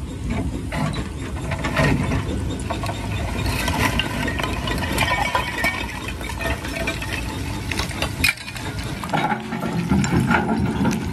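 Herbst jaw crusher running under load while an excavator bucket feeds it stone rubble: a loud, continuous clatter and grinding of stone. Late on, crushed stone pours off the conveyor onto the output pile.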